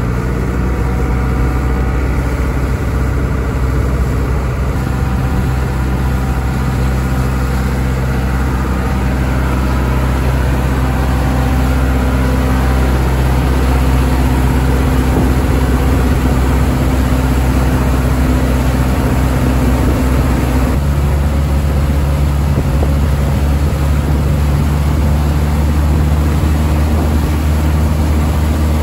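Isuzu 100 hp diesel inboard engine of a wasen fishing boat running steadily at high speed, with water rushing past the hull. The engine note shifts slightly about 21 seconds in.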